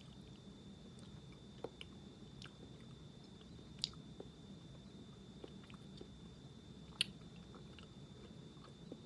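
Faint chewing of an eight-month-old strawberry gummy fruit snack that is hard to chew: soft wet smacks and small clicks from the mouth, with two sharper clicks about four and seven seconds in, over a steady room hum.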